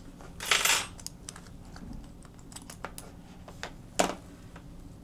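Small clicks and taps of phone parts being handled as the Galaxy S25's motherboard is lifted out of its frame, with a brief scraping rustle about half a second in and a sharper click about four seconds in.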